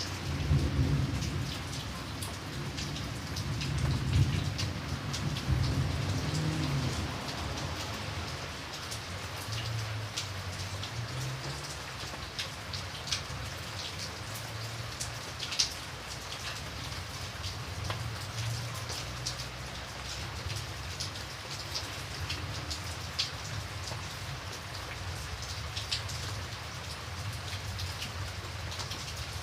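Steady rain falling, with individual drops ticking sharply on a hard surface over an even hiss. A low rumble runs under it for the first several seconds and fades away.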